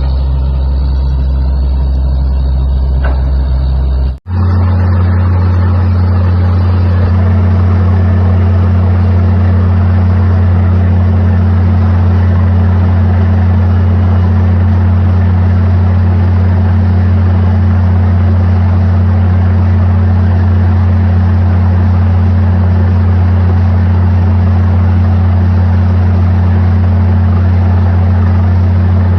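Borewell drilling rig running: a loud, steady engine drone. About four seconds in, it cuts out for an instant and comes back at a slightly higher pitch.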